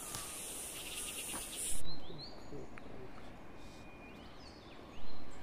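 High-pitched, pulsing insect buzzing that stops about two seconds in. A brief loud rush of noise comes as it stops and another near the end, with a few faint short rising chirps in between.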